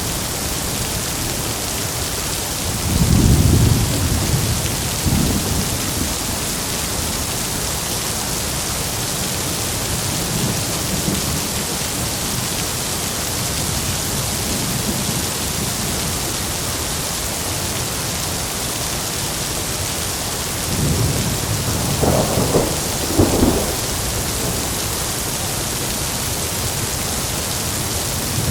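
Heavy rain falling steadily, with thunder rumbling twice: a low roll about three seconds in and a longer, crackling peal around three quarters of the way through.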